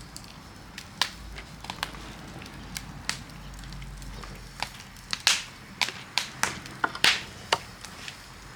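Wood campfire crackling, with sharp irregular pops over a low steady hiss; the pops come thicker and louder a little past halfway.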